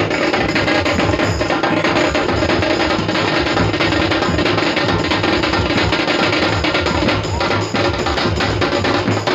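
Loud music with a steady, driving drum beat.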